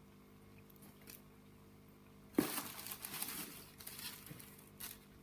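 Packaging crinkling as it is handled, starting suddenly a little before halfway and going on for about two and a half seconds.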